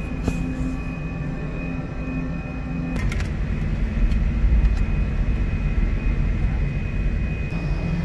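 Steady drone of a car ferry's machinery: a low rumble with a thin, high steady whine over it. A sharp click comes about three seconds in, after which the rumble grows louder.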